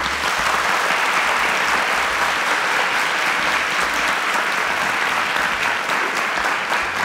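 A large audience clapping in steady applause.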